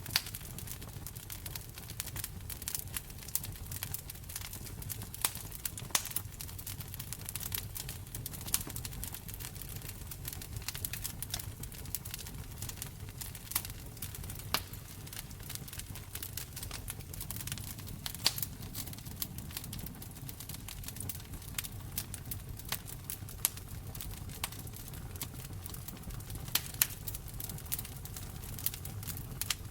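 Wood fire in a fireplace crackling, with frequent irregular sharp pops and snaps over a low steady rumble of the flames.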